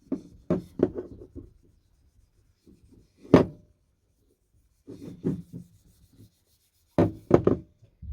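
Cloth rubbing oil into a wooden hammer handle in short groups of scuffing strokes, with one sharp knock about three and a half seconds in.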